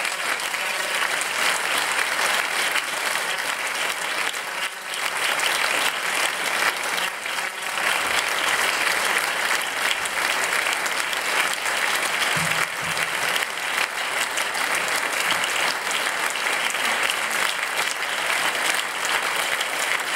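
Audience applauding, a dense, steady clapping that goes on without a break.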